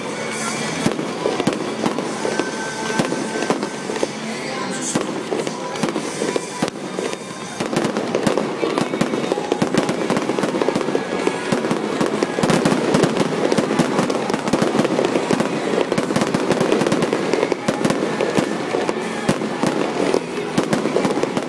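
Fireworks display: aerial shells and crackling effects going off in a rapid, continuous barrage of bangs and crackles, growing denser and louder about seven or eight seconds in.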